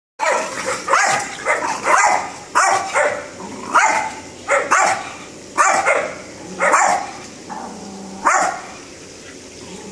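Small white dog barking aggressively at a person by its fence: a string of sharp barks, roughly one a second, stopping short of the end.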